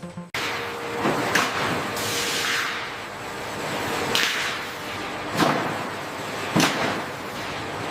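Factory machinery: a steady loud hiss broken by several sharp strikes, irregularly spaced, the last two about a second apart.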